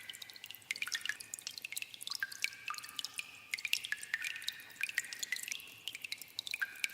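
Water dripping in a cave: many irregular drops, several a second, plinking into pools, each with a short ringing note at a different pitch.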